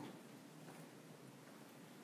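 Near silence: quiet room tone in a pause between spoken phrases.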